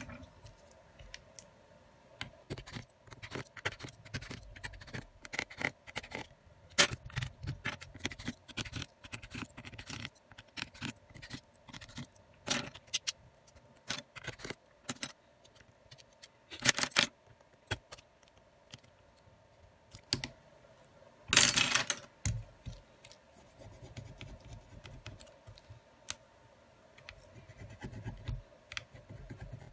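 Irregular small clicks, taps and scrapes of hands and a small tool working on an opened Xiaomi Redmi Note 10S smartphone, with two louder scraping rasps, one about seventeen seconds in and a longer one about twenty-one seconds in.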